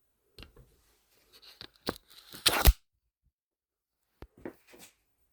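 Packaging being handled during an unboxing: a few short rustles and crunches, then a louder ripping sound like tape or wrapping being torn, about two and a half seconds in. A couple of sharp clicks follow near the end.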